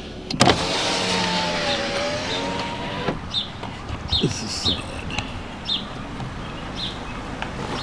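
A car's power window motor whines for about two and a half seconds, starting and stopping with a click. Then the car's running noise continues under a series of short high chirps.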